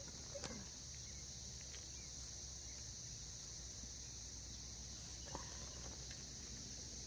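Steady, high-pitched insect chorus of crickets trilling without a break, with a couple of faint short sounds about half a second in and about five seconds in.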